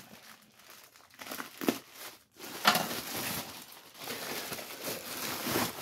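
Clear plastic bag crinkling and rustling as it is handled and pulled open around a packed vest. There are a few scattered crackles in the first two seconds, then steady, dense crinkling from about two and a half seconds in.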